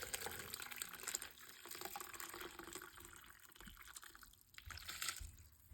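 Liquid pouring and splashing, easing off about halfway through, with a brief louder splash near the end.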